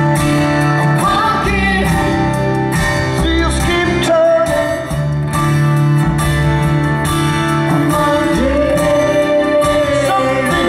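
Live band music, amplified, with guitar and sung vocals holding long notes.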